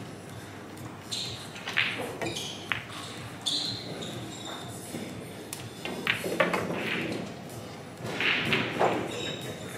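Pool balls clicking: the cue striking the cue ball and balls knocking together on a nine-ball table, with more scattered ball clicks and faint voices in the background.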